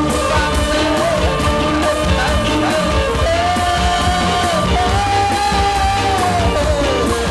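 Live band music from a likay troupe's band: a steady beat over a strong bass, with a lead melody of long held notes that slide up and down.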